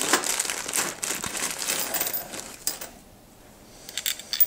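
Plastic bag crinkling as a hand rummages through it for small nuts and washers, followed near the end by a few sharp small clicks.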